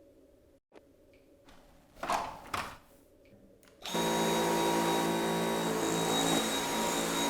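A few knocks of handling, then a Dyson V8 cordless stick vacuum switching on about four seconds in and running steadily with a high, even whine, as the machine is tested with its new battery pack fitted.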